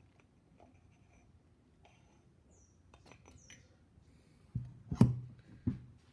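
Small metal clicks and scrapes of hand tools working on a shock absorber, then a few heavy knocks close together near the end, the loudest about five seconds in.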